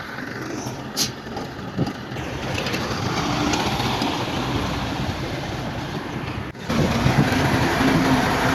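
Bulldozer's diesel engine running, with short knocks about one and two seconds in. The sound breaks off abruptly near the end and resumes with a louder, steadier engine note.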